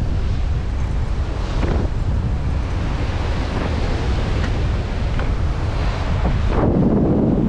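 Wind buffeting the microphone over the wash of surf breaking against a rocky shoreline, a steady rumbling noise that swells louder near the end.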